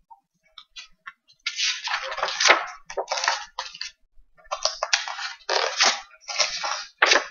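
Pages of a picture book rustling and crackling as the book is opened and handled, in several short bursts.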